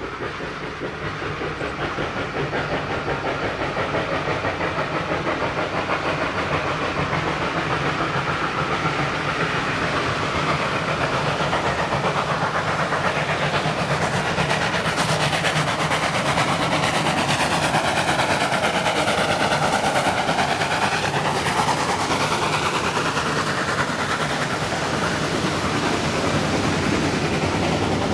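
Level crossing's warning bell ringing rapidly and steadily while a train approaches, growing louder and passing close by about halfway through, with its coaches rolling over the crossing near the end.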